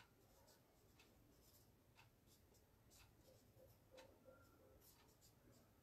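Near silence, with the faint strokes and taps of a marker pen writing on a whiteboard, including a few short squeaks about three to four seconds in.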